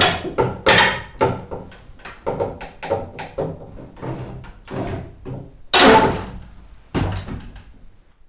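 A series of percussive knocks and thuds at uneven spacing, each with a short ringing decay; three strikes stand out as the loudest, about a second in and twice near the end, before the sound dies away.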